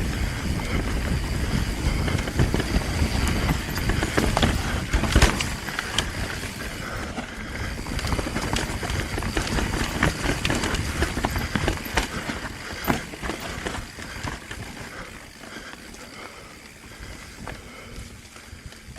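Mountain bike moving over rough trail: wind rumble on the helmet microphone, tyre noise and frequent clattering clicks and knocks from the bike. It grows quieter over the last few seconds.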